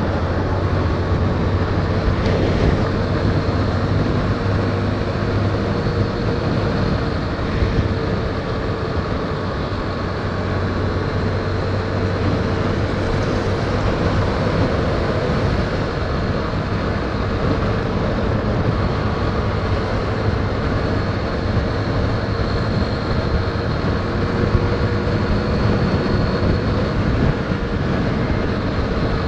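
Yamaha Fazer 150 motorcycle's single-cylinder engine running steadily at cruising speed, heard through a chest-mounted camera, mixed with road and wind noise.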